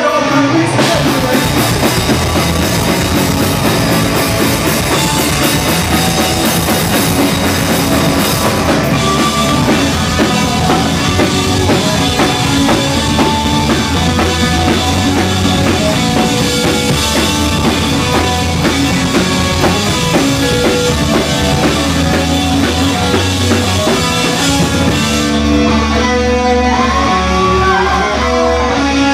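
Live punk rock band playing loud: distorted electric guitars, electric bass and a drum kit.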